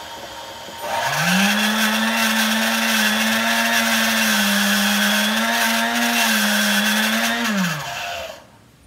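Vintage Sunbeam Mixmaster stand mixer motor running. It starts quietly, rises quickly to speed about a second in, and runs with a loud buzzing drone whose pitch wavers slightly. About 7.5 seconds in it winds down and stops. The owner takes the buzz for an unhealthy motor.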